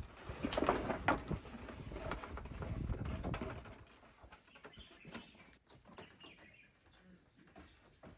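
Irregular knocks and clatter of construction work on wood for the first few seconds, then quieter outdoor ambience with faint bird calls.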